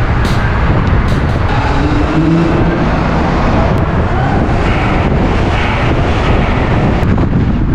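Loud, steady car engine and road noise from inside a moving car driving through a road tunnel, with a few shifting engine notes partway through.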